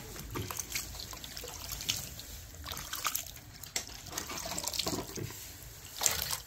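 Water trickling and splashing as goat liver, lung and fat are washed by hand, with irregular light knocks and clicks and a louder knock near the end.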